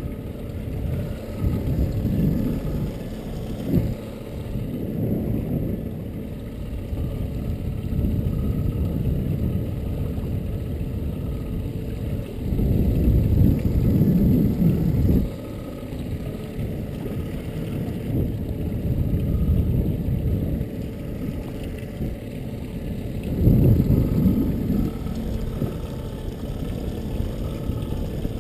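Wind buffeting the microphone in gusts, with water lapping against a small boat's hull; the rumble swells twice, a little before halfway and near the end.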